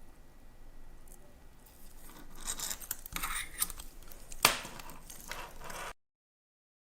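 Small scratchy scraping and rustling with many light clicks from handling and working on a watch, with one sharp click about four and a half seconds in. The sound cuts off abruptly about six seconds in.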